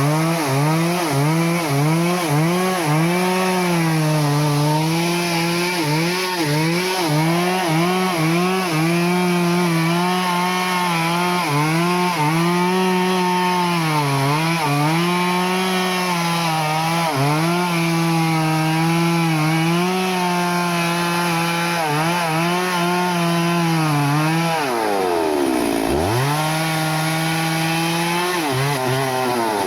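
Stihl two-stroke chainsaw running at high revs while cutting into teak wood, its pitch sagging and recovering again and again as the chain bites under load. About 25 seconds in the engine note drops steeply, then climbs back to full speed.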